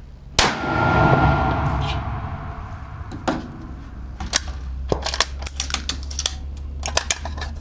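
One 6.5 Creedmoor rifle shot from a Ruger Precision Rifle with a muzzle brake, a little under half a second in, with a rolling echo lasting about a second and a half. It is followed by a long run of sharp metallic clicks and clinks.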